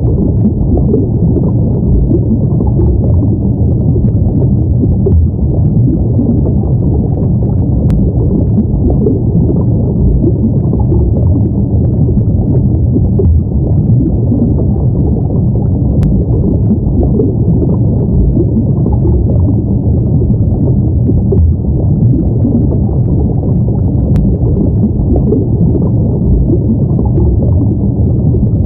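Steady, muffled underwater ambience: a dense low rumble of water noise that flickers but never pauses, with almost nothing in the higher range.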